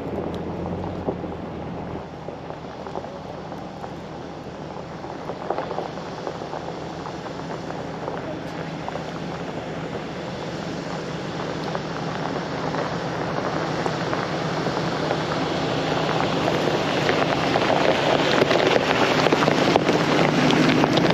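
A Jeep driving along a dirt forest trail: a steady low engine note under road and tyre noise that grows louder over the last several seconds.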